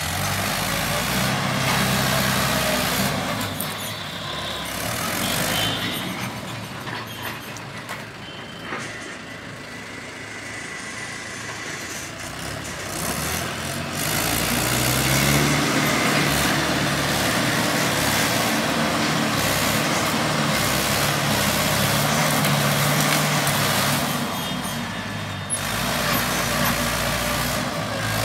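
Mahindra 585 tractor's diesel engine working under load as its front dozer blade pushes soil. The engine note rises and falls, easing off for a few seconds in the middle and pulling hard again soon after.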